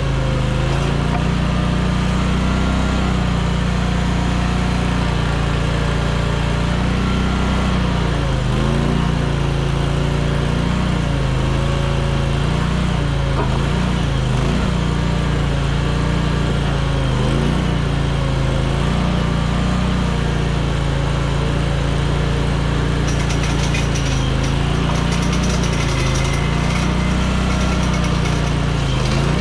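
Mini skid steer engine running hard while it powers a hydraulic flail mower, its pitch dipping and recovering again and again as the load comes and goes. A rapid crackling joins in near the end.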